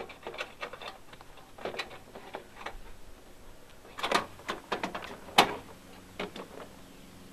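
Plastic interior door panel of a Jeep Wrangler JK half door being lifted off the steel door: a run of scattered clicks, rattles and scrapes. The busiest clatter comes about four seconds in, with one sharp click about a second later.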